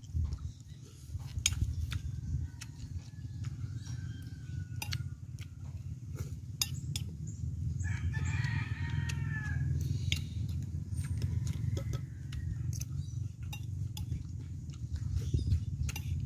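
A rooster crows once, about eight seconds in, for about two seconds. Around it come small clinks of a spoon and fork against a plate, over a steady low rumble.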